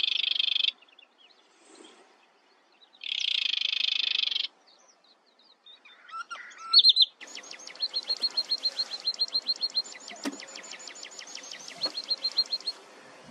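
Sedge warbler song: two harsh, dense churring phrases, one at the start and one a few seconds in, then a few scattered notes. From about seven seconds a songbird gives a long run of fast repeated high notes, about six a second, shifting pitch every so often, until just before the end.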